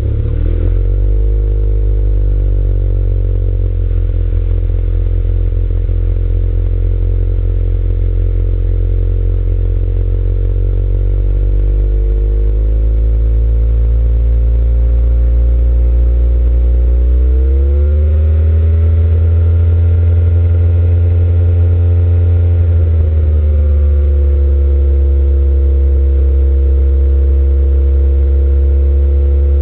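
Engine idling with a misfire just after starting. It settles in the first couple of seconds, rises to a faster idle about 17 seconds in, holds there for about five seconds, then drops back.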